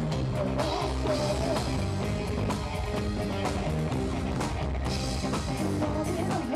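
Live rock band playing: drum kit, bass guitar and guitar with keyboards, a melody wavering above a steady beat.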